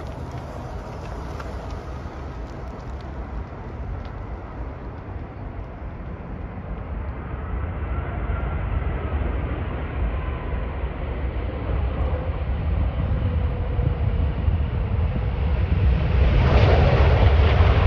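Airbus A380 airliner's four jet engines during landing: a steady low rumble and hiss with faint gliding engine whines, growing louder through the landing and loudest near the end as the jet rolls down the runway.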